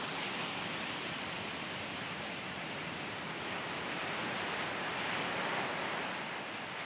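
Steady rushing noise of riding a quad along a dirt track: wind over the bike-mounted camera's microphone with tyre noise, no distinct engine note.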